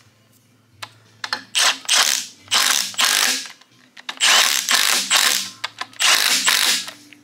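Cordless Milwaukee Fuel impact wrench hammering in four short bursts as it runs down the camshaft sprocket bolts on an LS V8's timing set.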